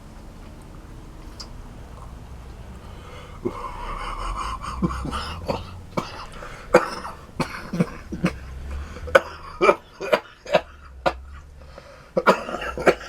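A man coughing hard and clearing his throat in a rapid string of sharp coughs, starting about three and a half seconds in, after a large mouthful of wasabi.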